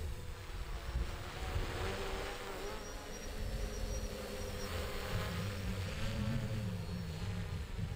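Quadcopter drone's electric motors and propellers buzzing overhead in flight, the pitch wavering up and down as it manoeuvres, over a low rumble.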